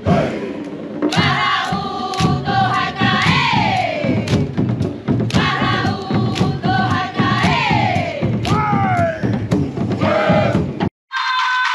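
Marquesan dance troupe chanting and shouting together, with long falling cries, over a dense low beat. About eleven seconds in it cuts off abruptly and different music follows.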